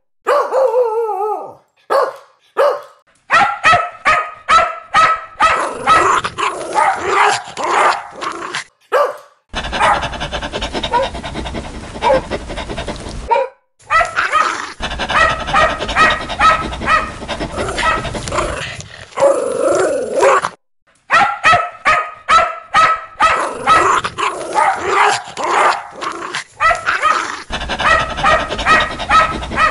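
Dogs barking loudly and repeatedly, in runs of quick barks several per second, cut into several bursts with brief silent gaps between them.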